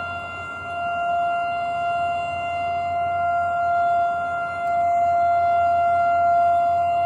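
Model 3 air raid siren sounding one steady tone with strong overtones, its loudness swelling and fading a little.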